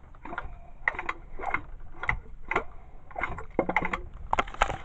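Old Craftsman lawn mower engine being turned over by hand to test a newly fitted ignition coil for spark: irregular mechanical clicking and rattling, about two clusters a second.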